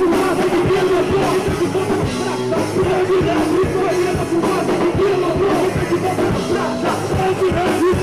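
Live rock band playing, with a vocalist singing into a microphone over drums and electric guitar.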